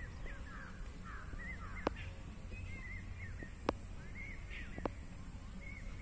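Birds calling and chattering in quick wavering chirps, over a steady low rumble of wind or handling noise. Three sharp clicks come about two, three and a half, and five seconds in, the middle one the loudest.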